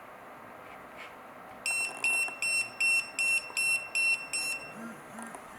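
Wireless restaurant coaster pager beeping on being called: a quick series of about eight short, high-pitched electronic beeps, roughly three a second, starting about one and a half seconds in and lasting about three seconds.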